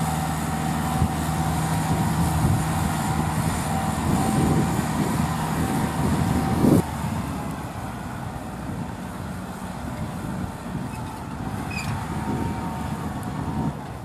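Kubota 4x4 tractor's diesel engine running steadily under load as it hauls a loaded grain trailer through paddy mud. About seven seconds in the sound drops suddenly, and the engine is fainter and more distant afterwards.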